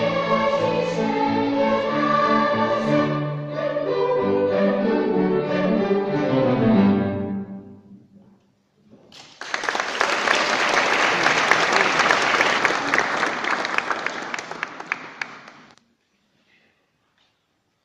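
Children's choir singing with a small string ensemble of violin and cello, ending on a chord that dies away about eight seconds in. After a short pause the audience applauds for about six seconds, and the applause cuts off near the end.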